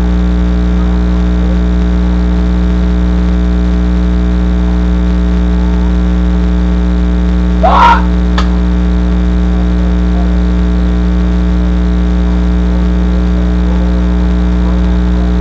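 Loud, steady electrical hum: a buzz with many evenly spaced overtones. About eight seconds in, a short rising shout-like sound, then one sharp crack.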